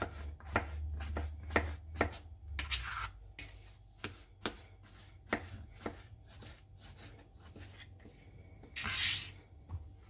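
Kitchen knife slicing mushrooms on a plastic cutting board: sharp irregular taps of the blade meeting the board, a few a second at first and sparser later. A brief rustling swish about nine seconds in.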